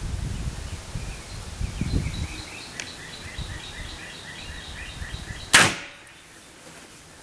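A .177 Benjamin Marauder PCP air rifle fires a single pellet about five and a half seconds in: one sharp crack that dies away quickly. Before the shot there is low rustling handling noise.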